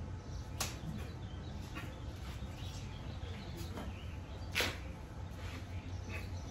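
A few short scuffs and swishes of sneakers on concrete and track pants as a person moves through a karate kata, the loudest about four and a half seconds in, over a steady low hum.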